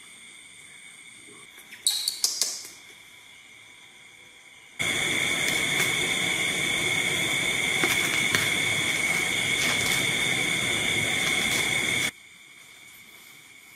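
Steady, even rushing noise of an electric fan running, starting abruptly about five seconds in and cutting off abruptly about twelve seconds in. Before it, a brief cluster of short high-pitched sounds about two seconds in.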